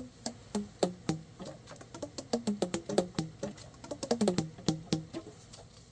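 Alto saxophone keys slapped shut in a quick, irregular run: sharp hollow clicks, each with a short pitched pop whose pitch changes from one to the next.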